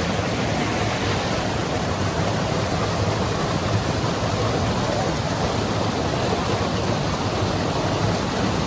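River water rushing over waterfalls and rocks, a steady full rush with no letup.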